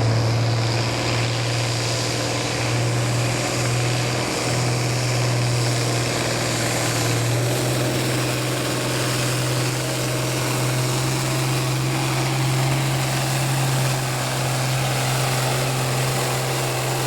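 Farm tractor engine running steadily at an even, unchanging pitch, not revving.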